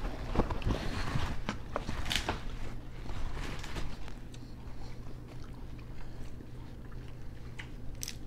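Steamed blue crabs being cracked and picked apart by hand, with chewing: scattered sharp cracks and clicks of shell, busiest in the first three seconds and sparser after.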